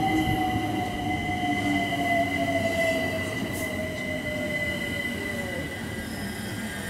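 London Overground Class 378 Electrostar electric train braking into the platform: its traction motor whine falls steadily in pitch and fades out about five and a half seconds in as the train comes to a stand. A steady high-pitched squeal runs over the top.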